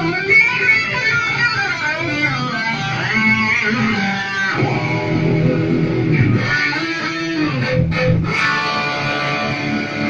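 Electric guitar played through a Marshall MG100HDFX solid-state amp head and 4x12 cabinet: single-note lead lines with several string bends that rise and fall back in pitch.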